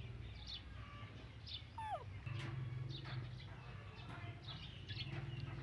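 Small birds chirping in short high calls, several times a second apart, with one call falling in pitch about two seconds in, over a steady low hum.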